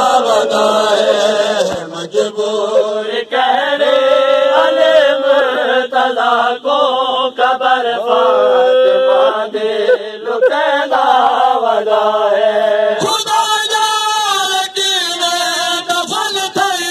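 A man chanting a noha, a Shia lament, into a microphone, with long held notes that waver and slide in pitch.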